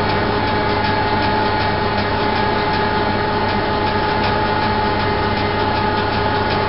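Steady drone of heavy machinery running without change, with a constant low hum and several steady tones over it.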